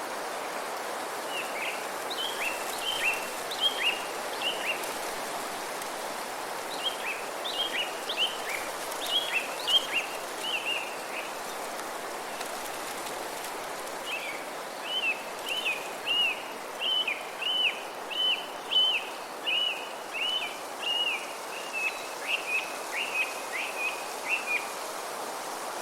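Morning forest ambience: a steady rush of wind through the trees with a songbird singing over it in three bouts of quick, repeated short chirping notes, the last bout the longest.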